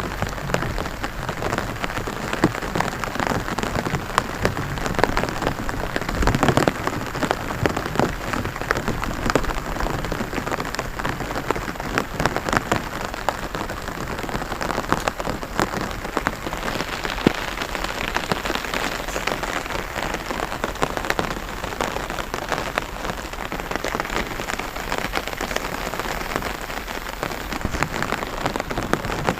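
Rain pattering steadily on the water of a rice paddy: a dense, even patter of countless small drops.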